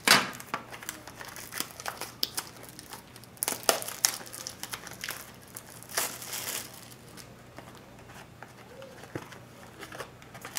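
Plastic seal on a trading card box being torn open and crinkled by hand, in irregular bursts that are loudest in the first few seconds and then quieter.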